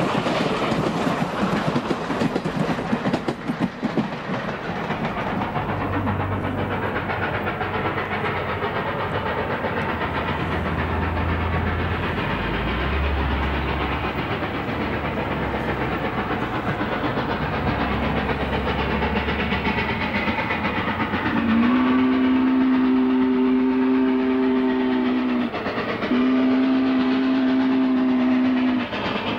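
Spokane, Portland & Seattle 700, a 4-8-4 steam locomotive, running with its passenger train, with rail clatter from the cars. Near the end its steam whistle sounds two long blasts.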